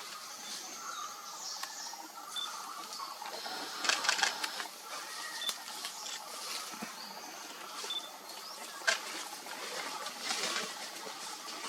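Forest birds calling: a short, high, pure note repeats every two seconds or so among other whistles. Clusters of rapid sharp clicks come about four seconds in and again near the end.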